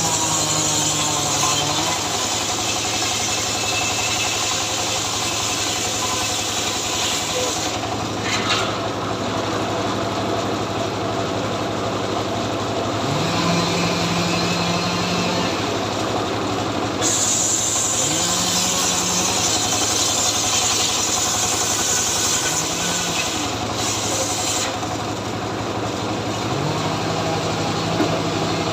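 Chainsaw engine running steadily, with a hissing upper layer that comes and goes for several seconds at a time.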